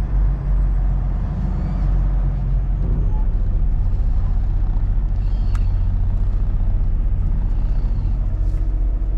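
Semi truck's diesel engine running steadily, heard from inside the cab, with a short sharp click and hiss about five and a half seconds in.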